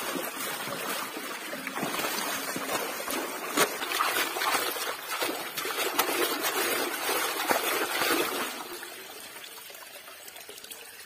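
Water pouring and splashing through a pond's drain outlet as the pond is drained, with a hand splashing in the flow. The sound eases off over the last few seconds.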